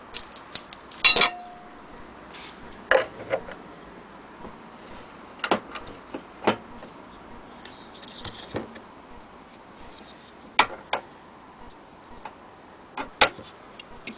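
Loose metal parts of an HMV portable gramophone being handled: irregular clicks, clinks and knocks as chrome fittings and the soundbox are moved about on the turntable. One loud clank about a second in rings briefly.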